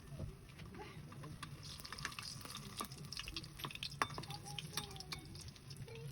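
Irregular small clicks and taps from cooking a glutinous rice flour and sugar mixture in a pan, thickest in the middle, over a steady low hum.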